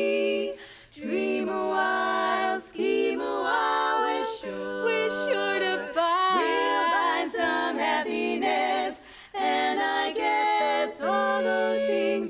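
Women's barbershop chorus singing a cappella in close four-part harmony, moving through sustained chords with a few brief breaks between phrases.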